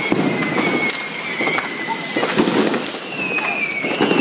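Fireworks going off at close range: a continuous high whistle that wavers and jumps higher about three seconds in, over many sharp crackling pops.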